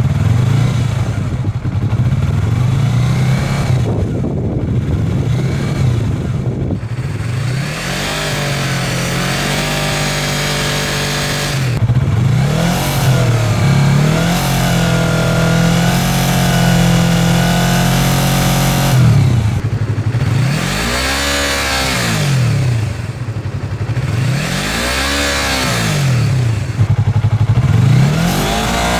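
Yamaha YZF-R3's parallel-twin engine being revved again and again, each blip rising and falling in pitch. Several short blips early, a steady higher hold through the middle, and three bigger revs near the end.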